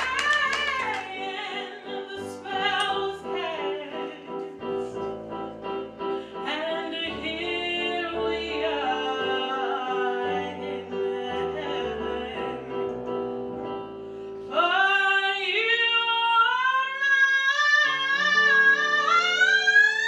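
A woman singing solo with vibrato on long held notes, over a steady sustained accompaniment. About two-thirds of the way through, her voice grows louder and climbs to higher held notes.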